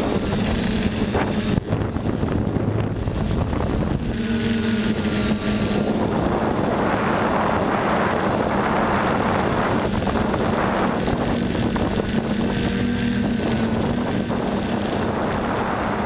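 FPV drone's electric motors and propellers whirring, heard from the onboard camera: a steady hum with a thin high whine that wavers in pitch. Rushing wind noise on the microphone runs under it and swells in the middle.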